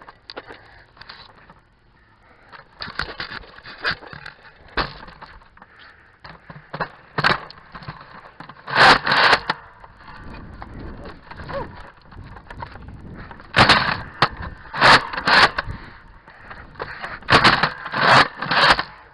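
Nerf blaster noise close to the microphone: irregular sharp clacks, knocks and rattles from handling and firing, in clusters, the loudest near the middle and toward the end.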